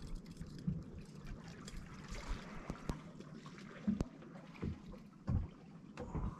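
Small waves lapping and trickling against a boat's hull, with a few soft low slaps and a couple of sharp knocks.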